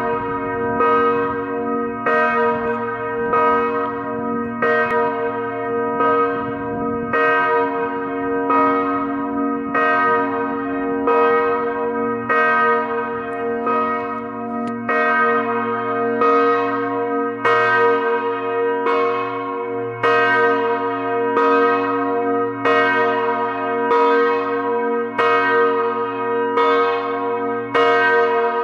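A single large memorial bell tolling steadily, struck about once every second and a bit, each stroke ringing on with a rich mix of tones into the next.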